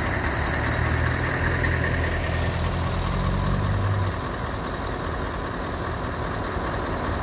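A motor vehicle's engine running with a deep, steady low rumble. The rumble drops away about four seconds in, leaving a quieter, steady running noise.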